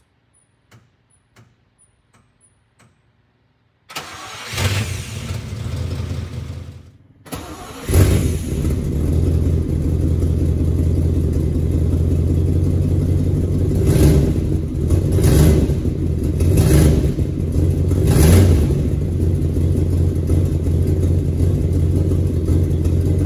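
AC Aceca-Bristol's 2-litre Bristol straight-six being cold started: after a few faint ticks, the starter cranks for about three seconds and stops, then the engine catches about eight seconds in and runs steadily. Four quick blips of the throttle come near the middle.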